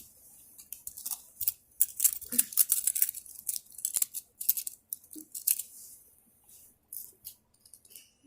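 Rustling and crinkling from small plastic fidget toys and a case being handled, a run of quick crackles with a sharp click about four seconds in.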